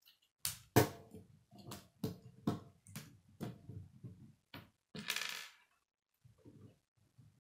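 Plastic K'nex pieces clicking and clattering against each other and the wooden tabletop as the model car is set down and its parts handled: a string of sharp clicks and knocks, the loudest about a second in, with a short rattle around five seconds in.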